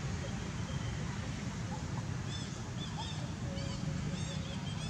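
Birds chirping in short, high, quick runs from about halfway through, over a steady low outdoor rumble.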